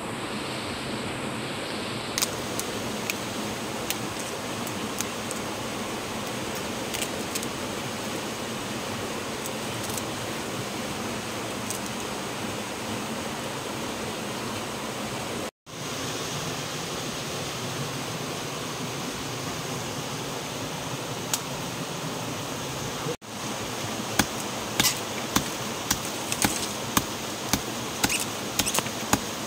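A steady rushing hiss with scattered sharp clicks, and in the last few seconds a run of sharp knocks about twice a second.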